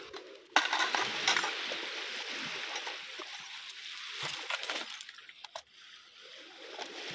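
Light clinks and knocks of plastic plates and containers as salt is put on a whole fish, over a steady hiss of background noise that starts abruptly about half a second in and fades after about five seconds.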